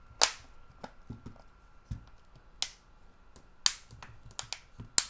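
Back cover of an LG K31 phone snapping onto its frame as fingers press around the edge: a series of sharp clicks, several of them loud, as the retaining clips catch.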